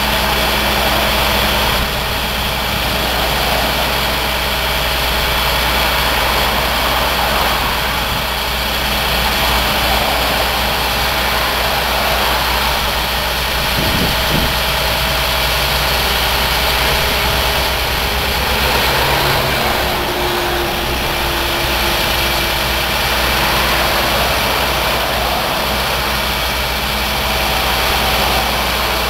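The crane truck's engine running steadily at idle while its hydraulic boom lifts the sign.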